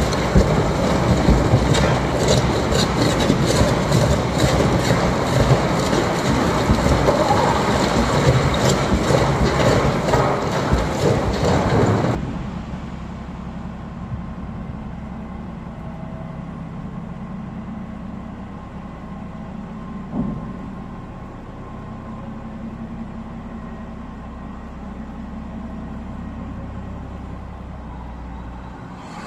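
Heavy mining machinery: a loud dense clatter of rock and machinery for about twelve seconds, then an abrupt cut to a quieter, steady low engine hum.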